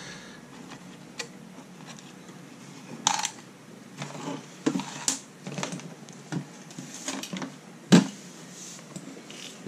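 Hands handling wiring and the sheet-metal case of a toaster oven: scattered light clicks and rattles, with a sharp knock about eight seconds in as the oven is shifted.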